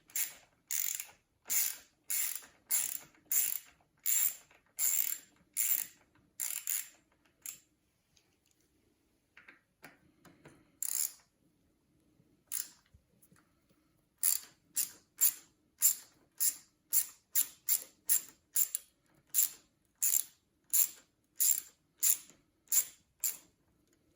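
Hand ratchet fitted with an Allen bit clicking stroke after stroke as it backs out the stem's steerer clamp bolts, about two strokes a second. There is a pause with only a few strokes in the middle.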